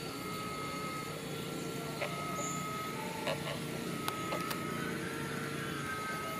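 A distant engine running steadily, with a few sharp clicks.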